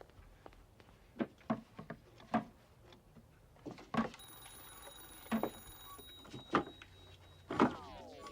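Equipment being struck and smashed: a series of irregular loud knocks and bangs, the heaviest near the end. A steady high-pitched tone comes in about halfway through, and the last bang is followed by a falling, sliding sound.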